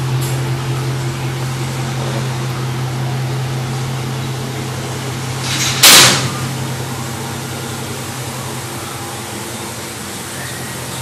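2013 Dodge Charger Daytona's 5.7-litre Hemi V8 idling steadily through a new SLP LoudMouth cat-back exhaust. One loud, sudden thump comes about six seconds in.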